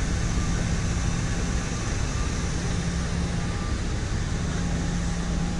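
Steady low rumble and hiss of idling engines and ground machinery on an airport apron, with a faint steady hum.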